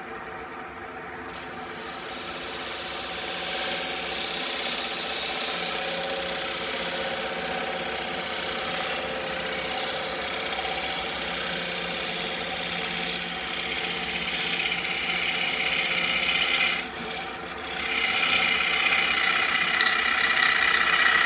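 Wood lathe spinning a green, wet bowl blank while a gouge takes a light finishing cut across the inside of the bowl, a steady scraping hiss over the lathe's hum. About 17 seconds in the cut stops for a moment, then resumes louder.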